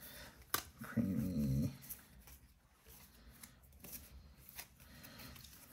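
Pokémon trading cards being handled and laid down on a wooden table: one sharp tap about half a second in, then only faint soft ticks and rustles. A man says one drawn-out word about a second in.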